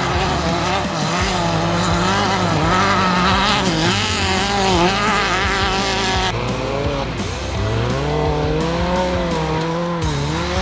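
Off-road race car engine revving hard, its pitch swinging up and down as the driver works the throttle, with a strong climb in revs about eight seconds in, over background music.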